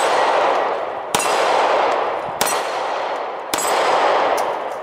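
Handgun fired at a steady pace, three shots about 1.2 seconds apart, each followed by about a second of metallic ringing.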